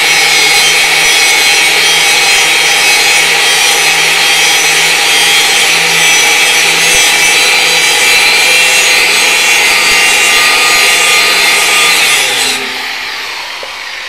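Angle grinder with a grinding disc cutting into a steel plate in steady back-and-forth passes, grinding off the mill scale. About twelve seconds in the grinding stops and the motor winds down, falling in pitch.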